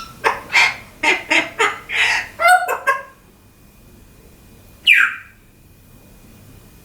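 African grey parrot calling: a quick run of about eight short calls over the first three seconds, then a single loud call falling in pitch about five seconds in.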